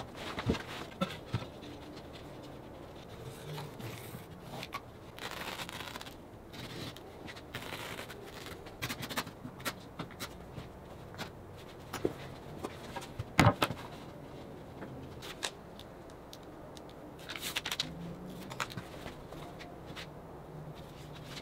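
Carpet being handled on a wooden workbench: scraping and rustling as it is spread out, marked and laid in place, with scattered light clicks and one sharper knock about halfway through.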